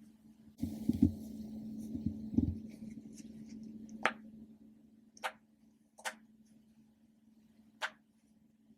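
Plastic animal popper toys being handled with a few low knocks and rustles, then popping four times in sharp, separate clicks about a second or two apart.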